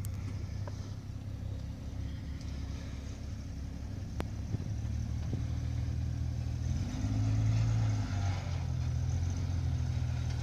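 Motor vehicle engine running steadily at low revs, growing louder about seven seconds in, with a single sharp click near the middle.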